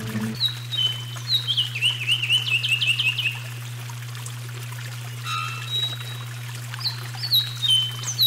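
A songbird sings two phrases of clear whistled notes stepping down in pitch. The first ends in a quick run of sharp chattering notes. A steady low hum runs underneath.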